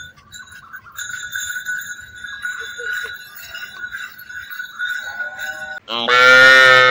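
Small bells on a calf's collar jingling as it walks and runs. About six seconds in, the calf lets out a loud, long moo that carries on past the end.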